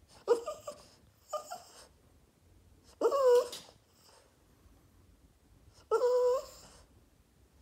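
Boston terrier whining at its owner for attention in four outbursts: two short ones in the first two seconds, then two longer, louder drawn-out whines about three and six seconds in.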